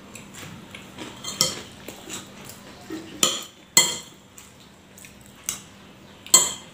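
Metal spoon clinking and scraping against a ceramic plate while scooping rice: several sharp clinks, the loudest a little past the middle and near the end.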